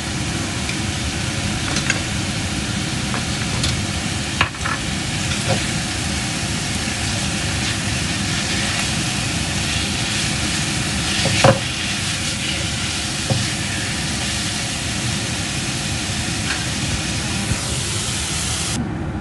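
Chicken drumsticks sizzling in a frying pan, with a few clicks and knocks of chopsticks against the pan as the pieces are turned, the loudest knock about halfway through. The high hiss cuts off suddenly near the end.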